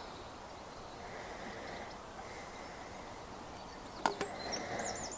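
Steady outdoor background noise by the water. About four seconds in come two sharp knocks, and near the end a bird starts a rapid high trill.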